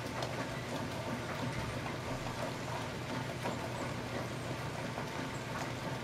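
Steady rain falling, with irregular raindrop ticks scattered through it and a steady low hum underneath.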